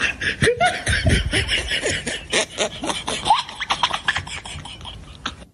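A person laughing in a rapid string of short bursts that trail off near the end.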